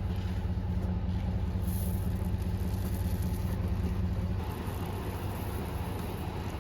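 An engine idling steadily with a low, even hum, easing slightly about two-thirds of the way through.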